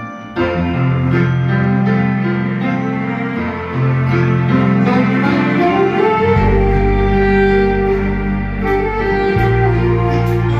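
A small band playing a slow trot ballad instrumental: a sustained melody over keyboard chords, with a deep bass line coming in strongly about six seconds in.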